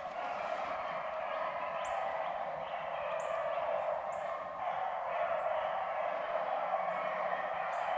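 A pack of beagles baying in chorus while running a rabbit, a steady mass of overlapping howls, with a bird's short high chirps breaking in about five times.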